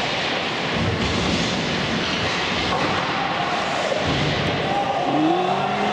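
Ice rink sound during play: a steady noise of skates on the ice and arena hubbub, with a rising hum that comes in about five seconds in and levels off.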